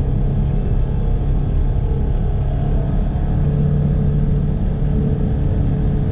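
Polaris Ranger 1000 side-by-side's twin-cylinder engine running steadily under way, holding an even pitch.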